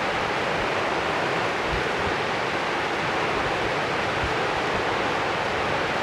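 Steady rushing of a mountain river, with occasional low wind gusts buffeting the microphone.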